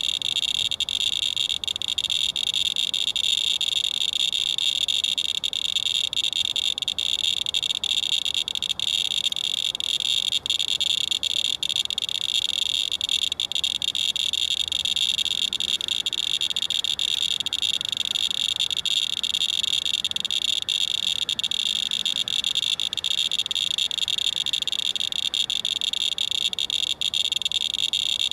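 Radalert Inspector Geiger counter clicking so fast that the clicks merge into a steady high-pitched buzz. This is a very high count rate: the wipe sample reads about 1.3 mR/hr, some 130 times background.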